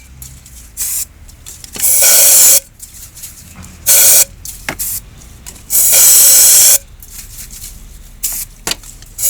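Compressed air from an air blow gun, fired in short loud hissing blasts: three of about half a second to a second each, and a fourth starting right at the end. It is blowing cleaner and carbon deposits out of a fouled scooter intake.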